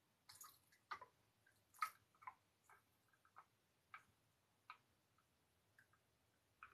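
Paint squeezed from a plastic squeeze bottle into a cup: faint, irregular clicks and small squelches, roughly one or two a second.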